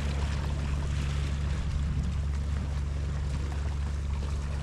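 Steady low rumble of wind on the microphone with a light hiss of sea water lapping at a rocky shoreline.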